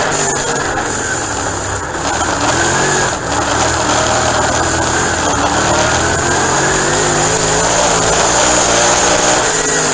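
Dirt-track race car's engine at racing speed, heard from inside the cockpit, its pitch rising and falling with the throttle through the turns. It dips briefly about two and three seconds in, then climbs again, with a steady rushing hiss over it.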